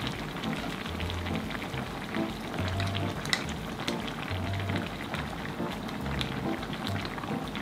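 Kimchi stew boiling in a pot, a steady crackle of bubbles popping, with background music carrying a regular bass note.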